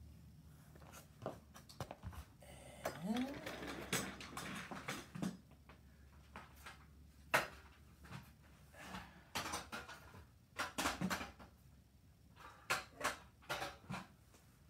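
Scattered clicks, knocks and rustling from handling a phone and adjusting lights, with a short rising sound about three seconds in.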